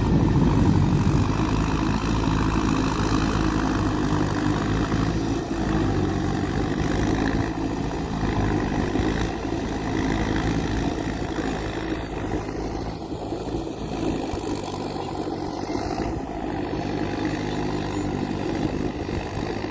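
Engine of a rice-paddy puddling vehicle running steadily, slowly growing quieter.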